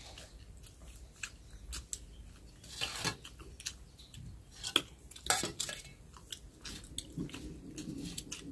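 Two people eating rice and fish curry by hand: chewing and lip-smacking with many short clicks, and a few louder smacks or clinks against steel plates around the middle.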